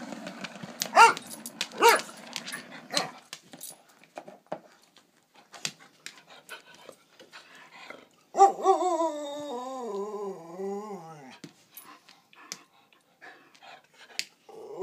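Nervous dog growling low with two short sharp yelps in the first few seconds, then scattered light clicks, and a long wavering whine that slides down in pitch about eight seconds in.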